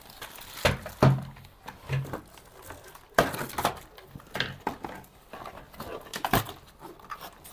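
Cardboard toy box and its packaging being handled and opened: scattered knocks and thumps, about four sharper ones, with rustling and small clicks between.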